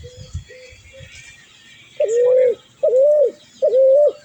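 A bird calling with clear, level, mid-pitched notes: a few faint short notes, then from about halfway three loud notes in steady succession, each rising at the start, holding and dropping off at the end.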